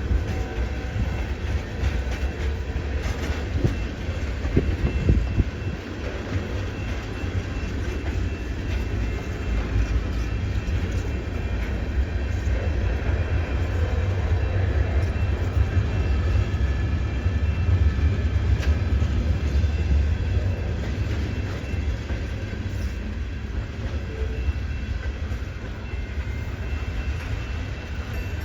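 CN freight train rolling slowly over a junction switch: a steady low rumble of wheels on rail, with wheel clicks and knocks over the joints and a faint high wheel squeal.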